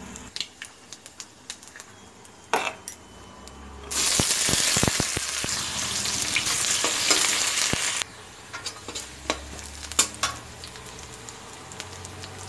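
Sliced onion frying in hot oil with dry red chillies and panch phoron in a kadai. A loud burst of sizzling starts suddenly about four seconds in and cuts off sharply some four seconds later. Before and after it there are quieter ticks of the spices in the oil and scrapes of a metal spatula against the pan.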